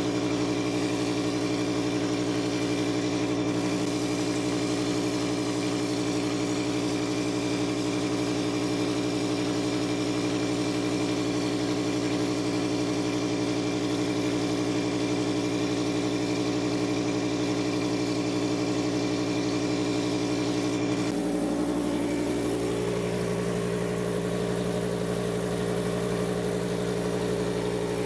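Engine of the spray rig running steadily. About 21 seconds in its note changes, and one tone glides up as the engine settles to a different speed.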